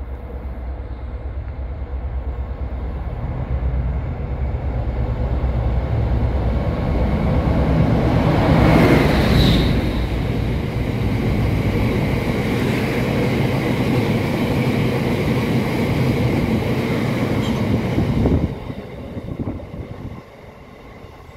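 Freight train passing close by on the track: the locomotive's noise builds to a peak about nine seconds in, then the long rake of open box wagons rumbles past until the last wagon clears about eighteen seconds in and the sound drops away.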